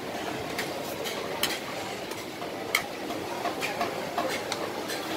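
A flat scoop working soft bean curd out of a large stainless-steel pot into a bowl, with a few sharp clicks and scrapes of the scoop and bowl against the pot, over a steady background noise.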